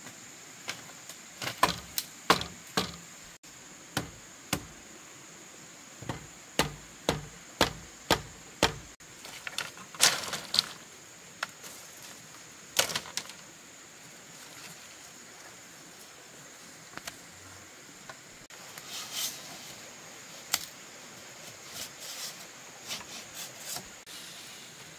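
Bamboo poles and split bamboo slats knocking and clattering together as they are handled at a bamboo frame: a quick run of sharp knocks over the first nine seconds, a few louder clacks around ten and thirteen seconds in, then scattered lighter taps.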